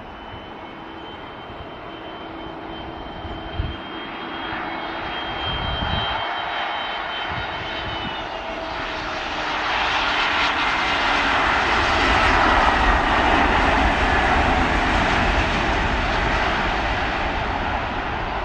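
An airliner's engines passing close by: a high whine over a rushing noise that builds, growing much louder about ten seconds in and staying loud.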